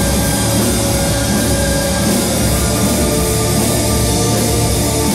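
Folk-metal music played by a rock band with a symphony orchestra: drums and guitars under sustained held tones, loud and continuous.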